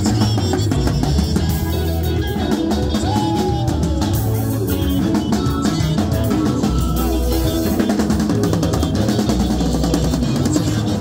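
Live band music: a Pearl drum kit keeping a busy, steady beat under an electric guitar, with low bass notes running underneath.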